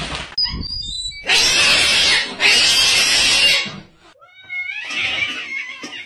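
Cats in a standoff: a sudden scuffle at the start, then two long hisses about a second each, and a short yowl near the end.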